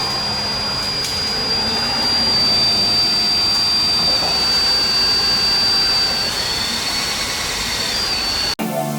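A small motor-driven blower running: a steady high whine over a rush of air, with the pitch sagging slightly. It cuts off abruptly near the end and music begins.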